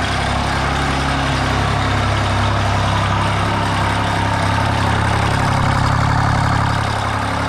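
Kubota G6200 diesel lawn mower engine, fitted with a K03 turbocharger, running steadily as the mower is driven, swelling slightly about five to six seconds in.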